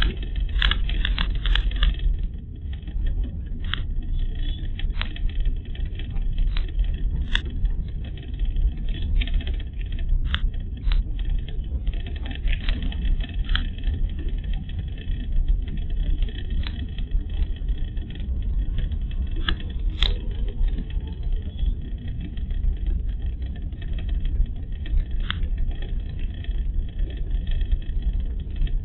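A car driving along a rough road, heard from inside the cabin: a steady low rumble of engine and tyres, with irregular light clicks and rattles every second or so, the sharpest about two-thirds of the way through.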